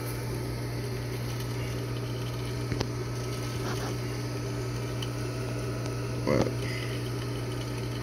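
Steady electric hum from running saltwater-pool equipment at the salt chlorine generator, with a light click about three seconds in.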